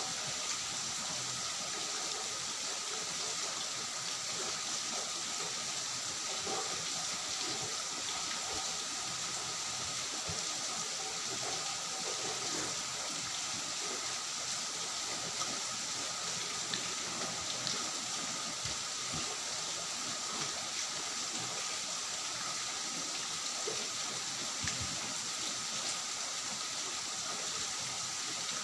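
Steady hiss of background noise under faint eating sounds: fingers scraping the last of the curry and rice off a steel plate, and chewing.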